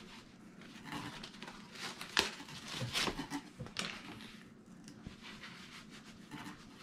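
Soft rustling and handling noise of a mesh-back baseball cap being pulled on, taken off and pulled on again, with a few light taps and clicks, the sharpest about two seconds in.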